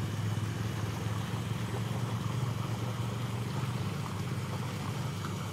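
An engine running steadily at idle, a low even hum with no changes in speed.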